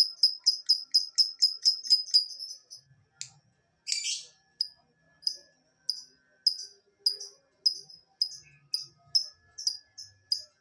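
Lovebird chirping in a fast run of short, high, evenly spaced calls, about four a second. About four seconds in comes one harsher, rasping call, and then the chirps go on more slowly, about two a second.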